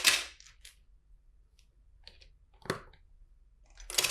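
Plastic LEGO bricks clattering and clicking as they are handled and pressed together: a short clatter at the start, then scattered light clicks, one sharper click about two thirds through, and more clicking at the end.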